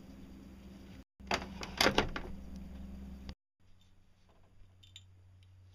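Stick welding on a low-power welder: the electrode is scratched and tapped against the steel to strike an arc, giving a few sharp scrapes and crackles about a second and a half in over a low hum, followed by a quieter stretch with faint clicks.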